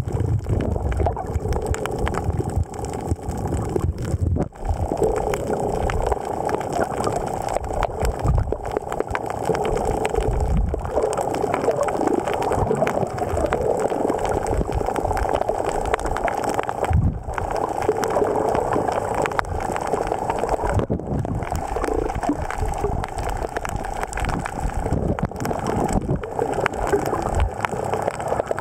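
Muffled underwater water noise picked up by a camera held below the surface: water churning and gurgling, with irregular low thuds.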